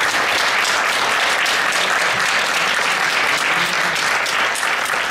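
Audience applauding: dense, steady clapping that eases slightly near the end.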